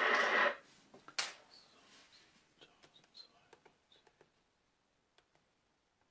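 Shortwave broadcast audio from a radio's speaker cuts off about half a second in. Then comes a sharp click, followed by a string of soft clicks from buttons pressed on the Tecsun PL-880 portable receiver's keypad.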